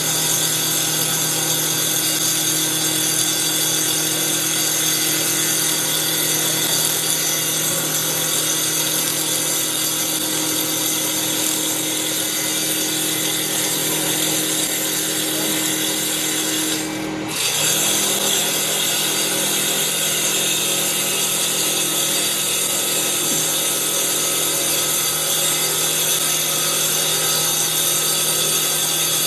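Saw blade on a CNC wood lathe cutting into a wooden baseball bat blank spinning at 3000 RPM, taking a 3 mm pass. It is a steady, loud, high-pitched cutting noise that dips briefly about two-thirds of the way through.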